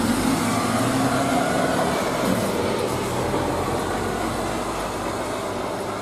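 Diesel engine of a truck-mounted concrete pump running, a steady rumble with street noise around it.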